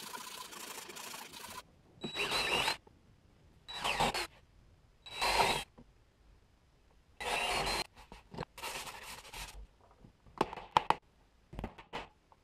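A steady whirring that cuts off about a second and a half in, then a cordless drill spinning up in four short bursts, each with a thin motor whine, as it drills into plywood. After that, a wooden sanding block rubs across the plywood, with scattered knocks.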